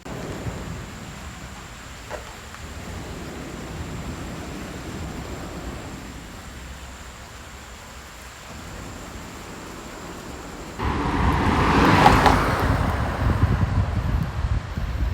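Steady rush of water from a low, wide waterfall spilling over a broad rock slab, with wind rumbling on the microphone. About eleven seconds in it suddenly becomes louder and brighter, as the water is heard from closer.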